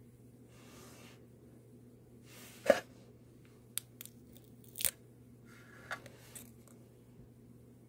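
Clear adhesive tape crackling and clicking as it is handled and peeled off a freshly polished fingernail: one sharp loud crackle about two and a half seconds in, then several smaller clicks and crinkles.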